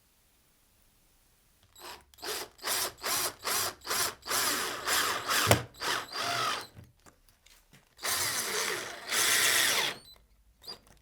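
Power drill running in a string of short trigger bursts, about two a second, then in longer runs, ending with two longer runs of about a second each near the end.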